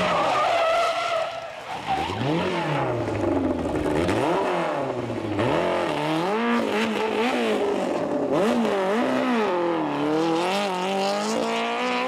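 Simca 1000 race car's rear-mounted four-cylinder engine revving hard, its pitch climbing and dropping again and again through gear changes and lifts. In the second half the revs swing up and down in quick, uneven bursts while the car slides sideways, with tyre skid noise.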